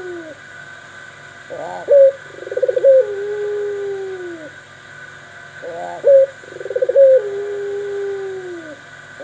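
A bird calling in the same phrase about every four seconds, twice in full: a short rising note, a quick stuttering run, then a long falling note held about two seconds.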